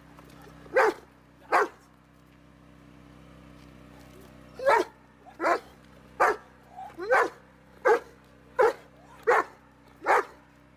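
Police dog barking repeatedly: two barks near the start, then after a pause a steady run of about eight barks, roughly one every three-quarters of a second, over a steady low hum.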